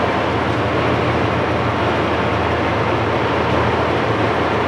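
Monarch 20-CM heavy engine lathe running with its spindle and faceplate turning: a steady mechanical hum and whir that does not change.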